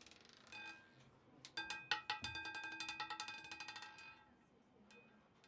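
Roulette ball clattering over the spinning wheel's pocket frets, a fast run of clicks with a metallic ringing, slowing and dying away as the ball settles into a pocket.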